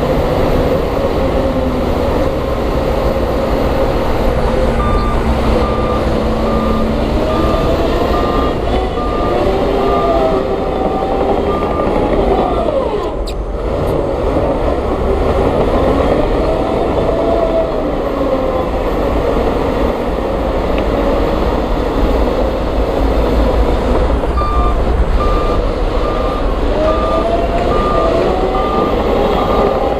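Diesel engines of heavy earthmoving machinery running under load, their pitch rising and falling as they rev. A reversing alarm beeps about one and a half times a second, from about five seconds in to about twelve, then again near the end.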